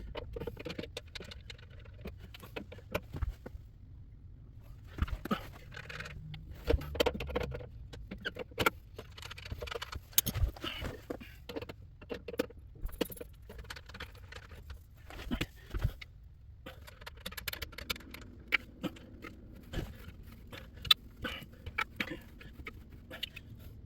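Irregular light knocks, clinks and scraping of household objects being handled and moved about, with a few sharper knocks among them.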